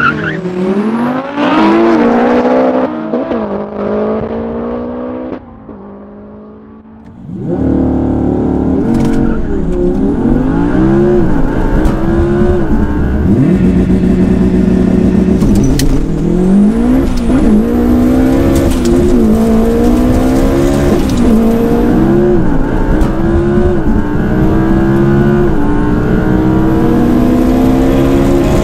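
Race cars launching hard off the line, engines revving up and pulling away, then, after a brief quieter moment, the cabin of the 700 hp turbocharged four-cylinder Subaru Impreza WRX STI at full throttle. The engine note climbs through each gear and drops back at every upshift.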